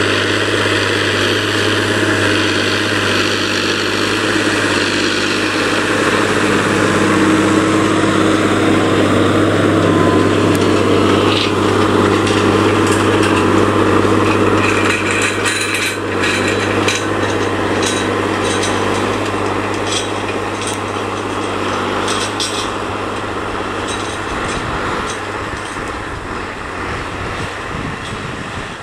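Massey Ferguson 6480's six-cylinder diesel engine running steadily under load while pulling a subsoiler through dry ground. A clatter of ticks and knocks from the implement and soil comes through the middle. The engine fades over the last few seconds as the tractor moves off.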